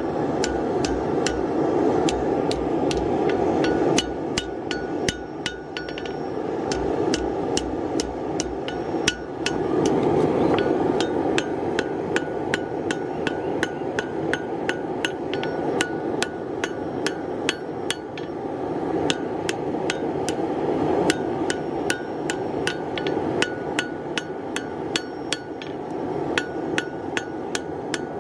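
Hand hammer striking hot steel on an anvil, forging a knife blade: sharp ringing blows at about three a second, with a few short pauses. A steady rushing roar runs underneath.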